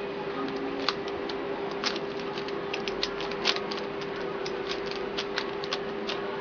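Plastic layers of a Case Cube, a 3x3 shape-mod twisty puzzle, clicking as it is turned by hand: irregular clicks with a few louder snaps, over a steady low hum.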